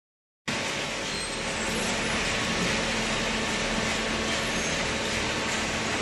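Hydraulic cardboard baler machinery running steadily: a constant hum under a loud, even hiss, cutting in suddenly about half a second in.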